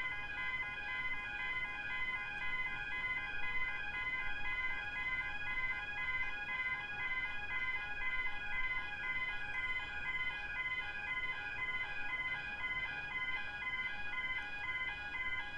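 Barker Technic Type 2 electronic railway crossing bells ringing steadily, a fast, evenly repeating electronic ding. The crossing is activated, warning of an approaching train.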